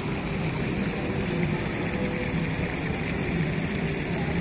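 Indoor fountain's water jets splashing steadily into the pool, an even rushing noise with a low hum underneath.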